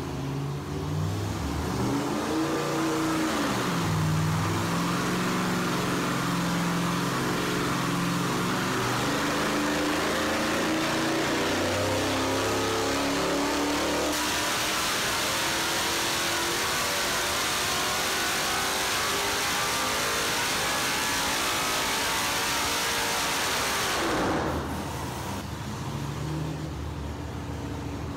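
Aluminum GM L33 5.3-liter LS V8 with long-tube headers running on an engine dyno: a short rev at first, then a wide-open-throttle pull with the pitch climbing steadily for about twenty seconds. Near the end the throttle closes and the revs drop back.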